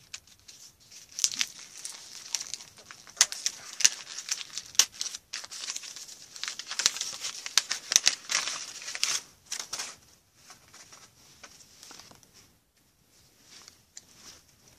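Football trading-card pack wrapper being torn open and crumpled: a run of crinkling, tearing crackles that dies down about ten seconds in, leaving only faint handling sounds.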